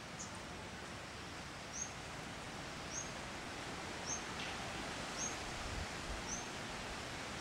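Steady outdoor background hiss with a small animal's short, high chirp repeating about once a second.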